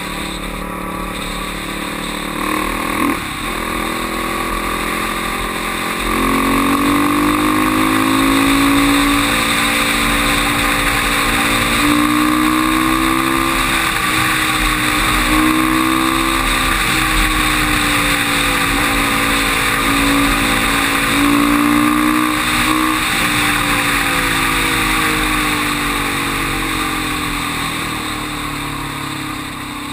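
ATV engine running at road speed, its pitch rising and dipping several times with the throttle. One sharp knock comes about three seconds in, and the engine is loudest in the middle stretch, easing off near the end.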